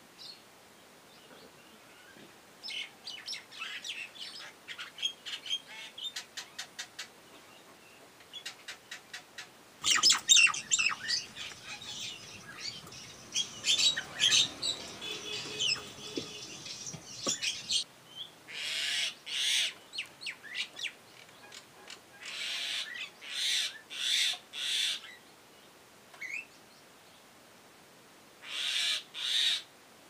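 Common mynas calling: fast clicking chatter, then a loud stretch of scratchy rustling about ten seconds in, then a run of short, harsh, rasping squawks in ones and twos through the second half.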